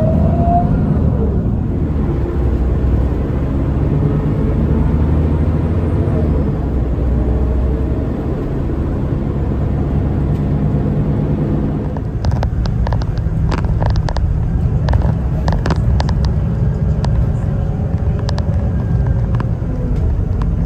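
A city bus under way, heard from inside: the engine and drivetrain give a steady low rumble, with a rising whine as it gathers speed that ends about a second in. From about twelve seconds in come scattered sharp clicks and rattles.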